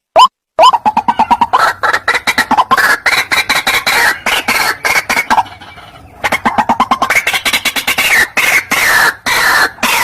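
White-breasted waterhen (ruak-ruak) call as played for bird luring: one rising note, then a rapid run of harsh, repeated calls. The calls dip into a short lull about halfway and then start up again.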